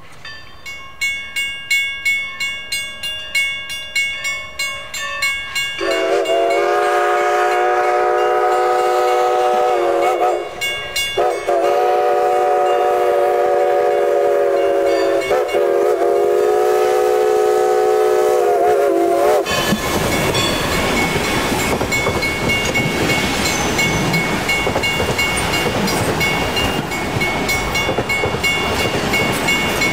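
Everett Railroad 2-6-0 Mogul steam locomotive #11 ringing its bell, then sounding its chime steam whistle in a series of long blasts. From about two-thirds of the way in, the locomotive and its coaches pass close by with a loud rush of wheel and rail noise, and the bell keeps ringing through it.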